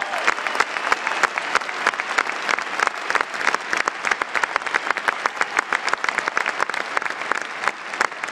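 Arena crowd applauding steadily, with sharp individual hand claps standing out from people close by.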